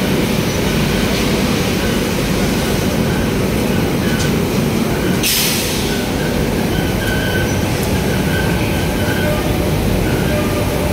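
Steady loud rumble of industrial plant machinery, with a short hiss about halfway through.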